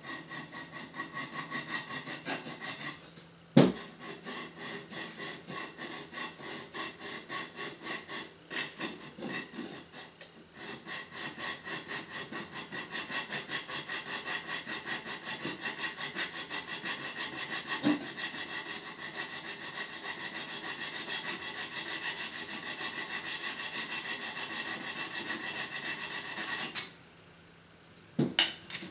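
Hand file rasping back and forth along the edge of a 4 mm aluminium plate in quick, even strokes, with a couple of short breaks. A sharp knock about three and a half seconds in is the loudest sound; the filing stops shortly before the end, followed by another knock.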